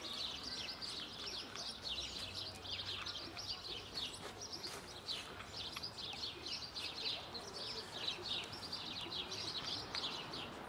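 Small birds chirping in a dense, continuous chorus of quick, high chirps, several a second.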